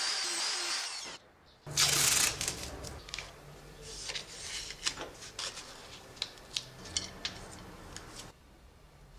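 A drill boring through a stack of handle spacers, with a steady high whine, cuts off after about a second. After a short gap comes a loud scraping burst, then a string of sharp clicks and taps from handling the blade.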